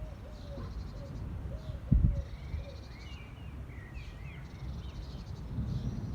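A dove cooing in short repeated phrases, then small birds chirping in quick high glides, over a steady low rumble with one brief thump about two seconds in.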